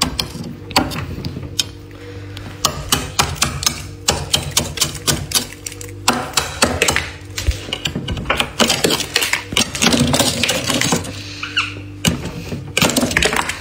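Knife blade scraping and chipping thick frost off the inside of a freezer compartment: many quick, crisp scraping strokes in uneven bursts, over a steady low hum.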